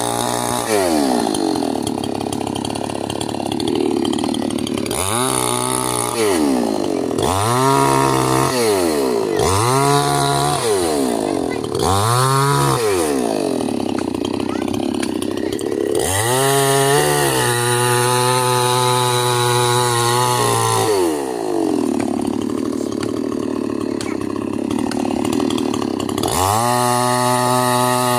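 Chainsaw engine idling and revved up and down in a series of short throttle blips, then held at high revs for several seconds, then revved up again near the end.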